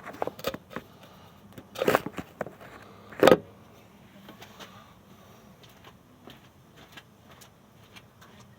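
Handling noises: clicks and small rattles, then two loud thumps about two and three seconds in, the second the loudest, followed by a faint steady hum with light scattered ticks.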